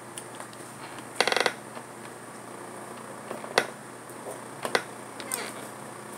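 A brief ratcheting creak about a second in, then a few sharp single clicks and taps, the sounds of someone shifting and handling things at a table.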